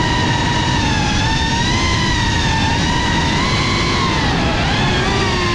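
Geprc Cinelog 35 6S quadcopter's motors and propellers whining, several tones drifting up and down in pitch over a rush of air.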